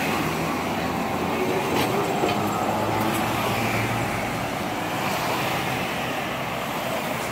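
Hiroshima Electric Railway streetcar No. 582 running along street-level tracks and pulling away, a steady hum with a few light clicks from the wheels and rails, mixed with road traffic.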